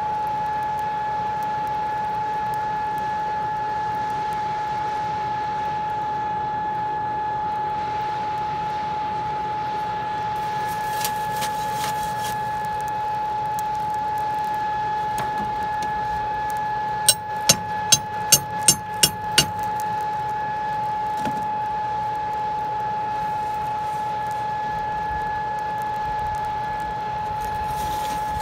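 Coal forge burning with its air blower running: a steady, even motor whine over the rush of the fire. About two-thirds of the way in, a quick run of about eight sharp clicks, about three a second.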